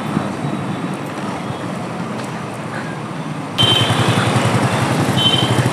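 Motorcycle riding through city traffic, its engine running under wind and road noise. A little over halfway the sound jumps louder with a faster low engine pulse, and two short high beeps sound.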